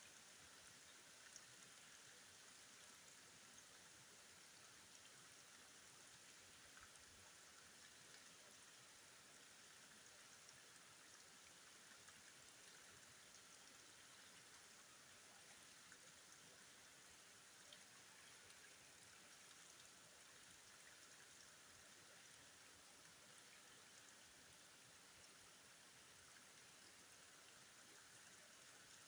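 Near silence with a faint, steady rush of flowing river water.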